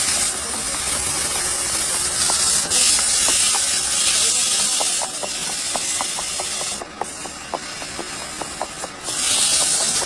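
Loud hiss of air, easing off and coming back a few times, over light, irregular clicking several times a second.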